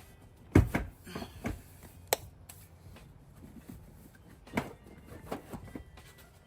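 Handling noises from a covered headrest being slid back onto a car seat: a few dull thumps and knocks, the loudest about half a second in and another after four seconds, a sharp click about two seconds in, and light rubbing of the faux-leather cover.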